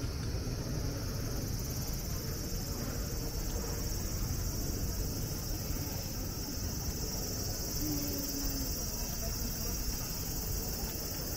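Cicadas calling in a steady, unbroken high-pitched drone, louder from the start, over a low background of street noise.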